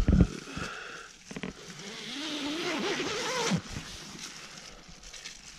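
A tent door zipper pulled open, a rasping whine that wavers up and down in pitch from about two seconds in for a second and a half, after a sharp knock at the start and a couple of clicks.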